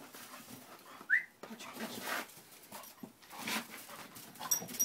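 A bull terrier cross dog playing with a ball: a short rising whine about a second in, then several brief noisy breaths.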